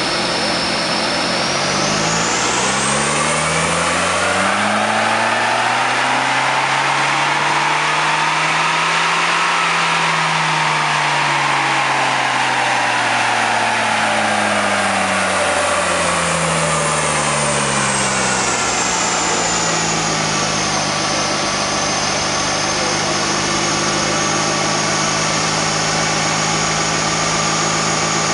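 Volkswagen Passat estate's engine under load on a chassis dynamometer: the revs climb smoothly for about seven seconds to a peak, fall back over the next eight or so, then settle to a steady run, with a high whine rising and falling alongside the revs.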